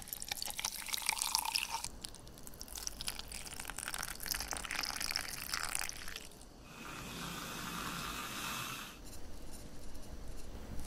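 Liquid poured into glass vessels: water splashing into a glass teapot over a tea bag for the first few seconds, then milk poured into a drinking glass. About six and a half seconds in, the sound becomes a smoother, steady hiss that lasts some two seconds.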